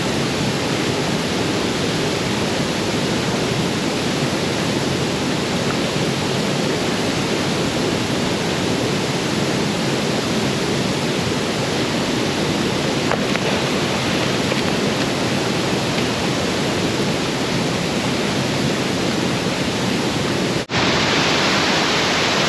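Waterfall's cascading water rushing steadily. About two seconds before the end the sound cuts out for an instant, then carries on slightly brighter.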